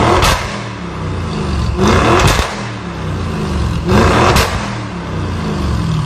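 Audi RS6's twin-turbo V8 revved through a Milltek exhaust in economy mode: three sharp blips about two seconds apart, each rising and falling back to a rumbling idle. A raucous note.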